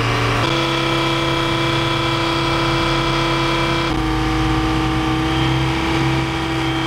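Heavy diesel engines of an asphalt paver (PF-180H) and a dump truck running steadily while asphalt is unloaded into the paver's hopper: a loud, even drone with a steady whine over it. The drone's pitch shifts abruptly about half a second in and again about four seconds in.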